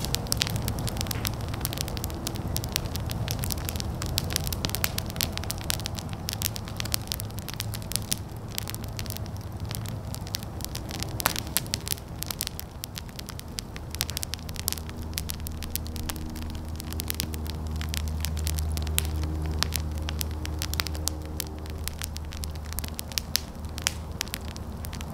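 Fire burning with frequent sharp crackles and pops over a low steady rumble, which grows stronger about halfway through.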